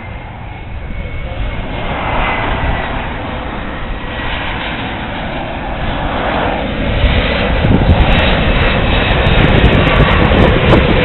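Twin turbofan engines of an Embraer E-Jet regional airliner on final approach, growing steadily louder as it comes closer, with a thin high whine over the rumble. Wind buffets the microphone in the last few seconds.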